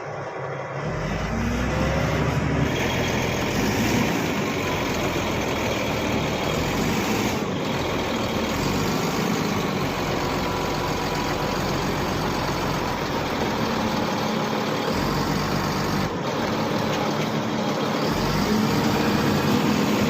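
Heavy diesel engine of a bulldozer running steadily, its level rising about a second in.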